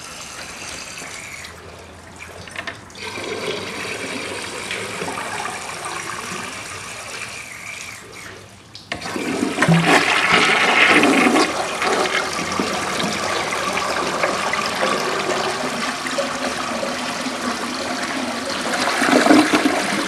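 A 1963 Briggs toilet flushing. Fainter running water comes first, then about nine seconds in the flush starts with a sudden rush of water and keeps going for the rest of the time. The flush is slow, as a slow-flushing bowl sounds.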